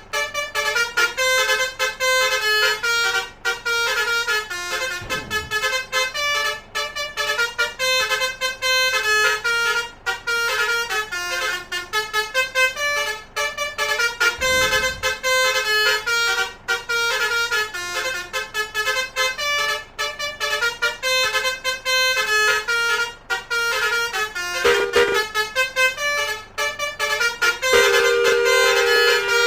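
Basuri multi-trumpet 'telolet' horn playing a fast melody of short stepping notes without a break, ending on a longer held note. A brief low falling sweep comes in about five seconds in and again about fifteen seconds in.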